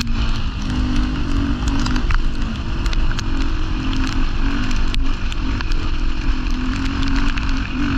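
Rally motorcycle engine running under load, its pitch rising and falling with the throttle, with scattered sharp ticks over the top.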